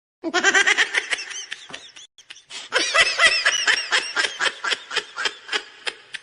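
High-pitched laughter sound effect: rapid 'ha-ha-ha' pulses in two runs with a short break between, the second run trailing off.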